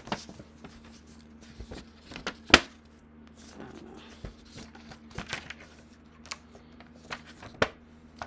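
Stiff laminated card stock sheet handled by hand: scattered sharp clicks and taps, the loudest about two and a half seconds in, over a faint steady hum.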